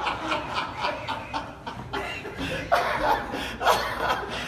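A congregation laughing, with two louder bursts of laughter in the second half.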